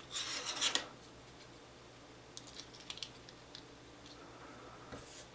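Small metal lock-picking tools and a small padlock being handled: a short rustle and clatter in the first second, then a few faint, light metallic clicks.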